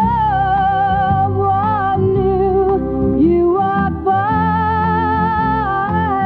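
A song playing: a singer holding notes with vibrato over a steady band backing with bass and guitar.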